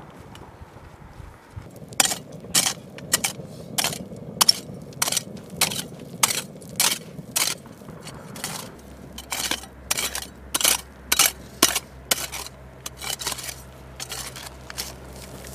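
Folding entrenching tool stabbing and scraping into gravelly soil to dig a seat for a mortar baseplate: a sharp crunch of blade on gravel about every half-second to two-thirds of a second, beginning about two seconds in.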